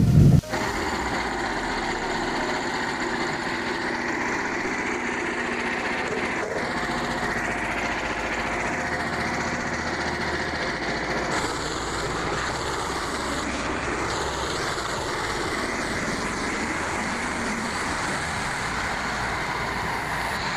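Small engine running steadily at an even speed, after a louder low rumble cuts off suddenly right at the start.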